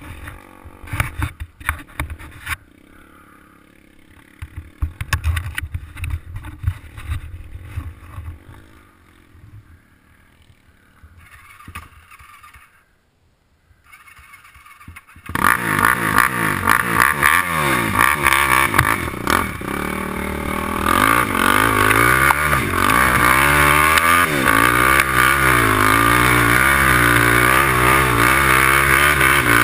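Quad (ATV) engine: a low rumble with scattered knocks, dropping to near silence, then about fifteen seconds in the engine comes in loud and runs hard, its revs rising and falling as it climbs a steep dirt hill.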